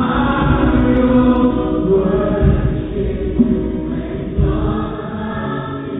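A choir or congregation singing a Christian worship song together, holding long notes.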